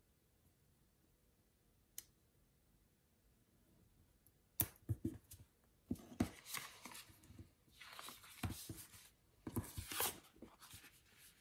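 Paper sticker sheets and planner pages rustling and sliding as they are handled, with small clicks, starting about four and a half seconds in. Before that there is a single light tick about two seconds in.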